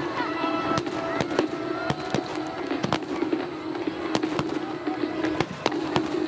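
Fireworks shells bursting in quick succession: a steady run of sharp bangs and crackles, about three a second.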